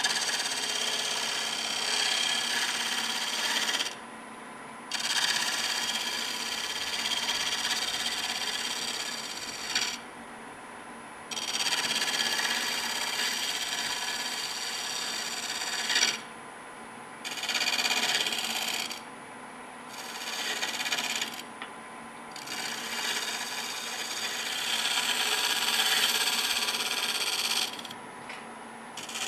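Bowl gouge cutting a spinning wood blank on a lathe: a hissing, scraping cut that throws off fine shavings, in about six passes of one to five seconds each, with short breaks between them where the tool comes off the wood and only the lathe's steady running is left.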